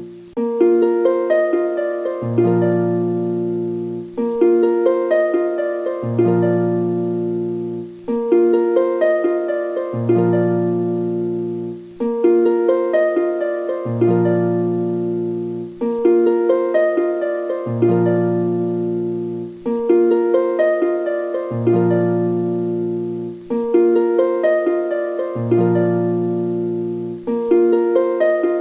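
Background music: a short plucked-string melody repeating as a loop about every four seconds.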